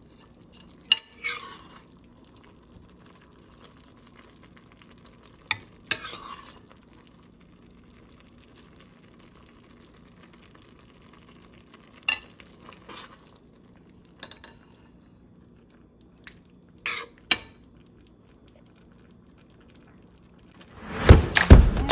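Metal ladle stirring cooked vegetables and fish in a stainless steel pot, clinking and scraping against the pot in a few short separate bursts. Loud rhythmic music comes in near the end.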